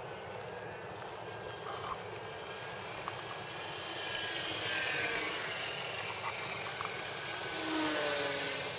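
Electric motor and propeller whine of a radio-controlled Parkzone Corsair flying past overhead. It grows louder around the middle, then swells again and drops in pitch as the plane passes near the end.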